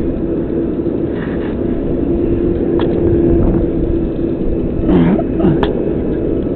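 Crane's diesel engine running steadily: a low rumble with a steady hum over it.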